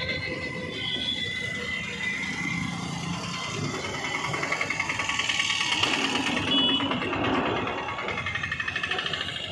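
Street traffic with a motorcycle engine passing close, its fast, even putter rising and falling, and a short high beep about two-thirds of the way through.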